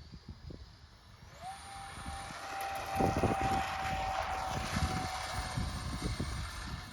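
Twin 50 mm electric ducted fans of an RC model jet spooling up about a second and a half in, then running at steady speed with a high whine over a rushing air noise.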